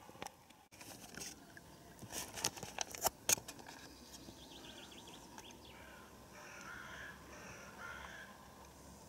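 A cluster of sharp clicks and knocks, then a bird calling faintly several times.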